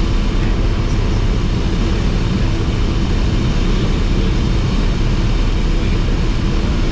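Cessna 172S's Lycoming four-cylinder engine and propeller drone, heard inside the cabin, running steadily at an unchanging power setting.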